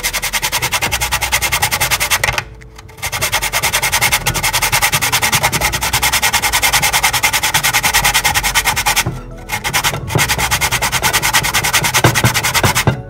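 Whole nutmeg being grated on a metal box grater: fast, even rasping strokes, several a second, with two short pauses, about two and a half seconds in and again near nine seconds.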